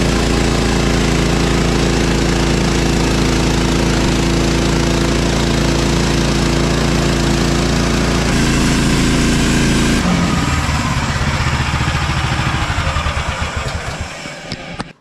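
Woodland Mills portable bandsaw mill's gas engine running at a steady high speed while the band blade, freshly replaced, cuts through a log. About ten seconds in the engine note changes and the sound dies away over the last few seconds.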